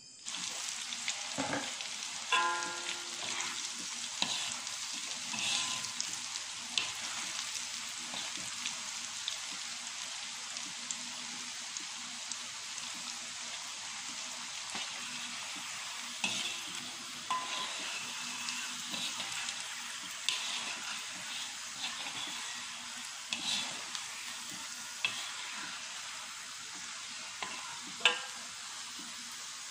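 Flour-coated banana stem strips deep-frying in a wok of hot oil: a steady dense sizzle, with occasional clinks and scrapes of a wire mesh strainer stirring them against the wok.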